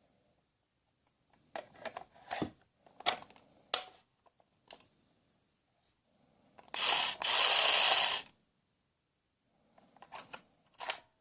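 Plastic toy tools clicking and knocking as they are handled, and about seven seconds in a toy power tool runs for under two seconds with a brief break partway through.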